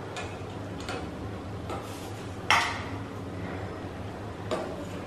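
Stainless steel spoon clinking against a steel pan and bowl while skimming foam off cooking masoor dal: a few light clinks, with one louder clink about two and a half seconds in, over a steady low hum.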